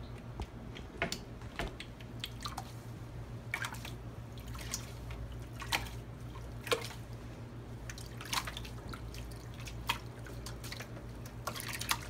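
Dye liquid dripping and splashing back into a tub as a wet wool skein is dipped into the dye bath and lifted out: irregular drips and small splashes, over a steady low hum.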